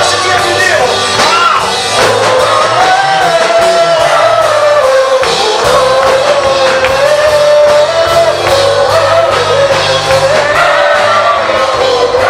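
Gospel praise singing: several voices sing a held, flowing melody together over instrumental backing with a steady bass line.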